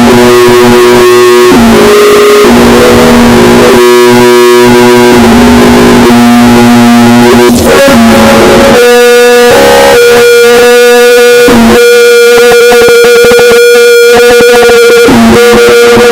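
Mock Emergency Alert System alarm: very loud, harsh sustained tones that step between pitches every second or two, moving up to a higher held tone about nine seconds in.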